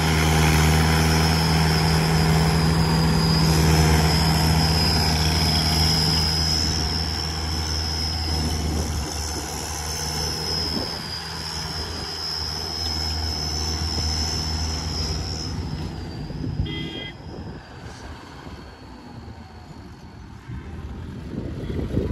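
Mahindra 575 XP Plus tractor's four-cylinder diesel engine running, with a whistle fitted in its silencer giving a steady high whistle over the engine note. The whistle and engine grow quieter about two-thirds of the way through.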